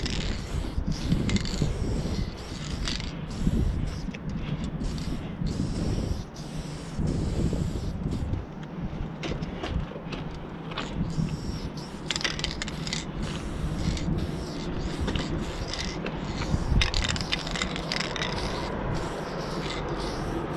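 Aerosol spray-paint can hissing in short, repeated bursts as paint goes onto a truck's metal side panel, over a constant low rumble and rubbing.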